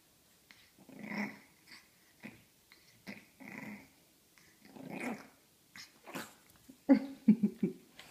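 Pug puppy growling in short bouts while playing, with a quick run of sharper, louder growls near the end.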